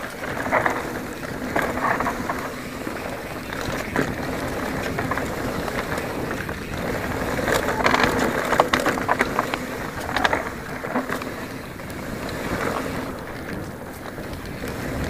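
Specialized Enduro full-suspension mountain bike ridden fast down a dry dirt singletrack: steady wind rush on the camera microphone and tyre rumble over the dirt, with frequent rattling clicks and knocks from the bike as it hits bumps, heaviest about halfway through.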